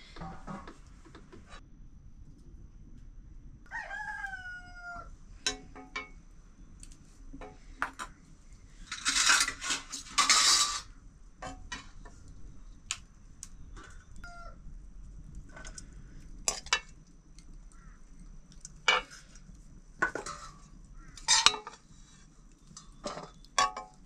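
A rooster crows once, about four seconds in, over scattered clinks of dishes and cutlery. Two louder harsh noises, each about a second long, come around nine and ten seconds in.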